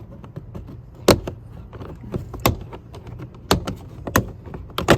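Plastic retaining clips of a 2016 Honda Accord's door trim panel popping loose as the panel is pried off with a trim removal tool: five sharp snaps about a second apart.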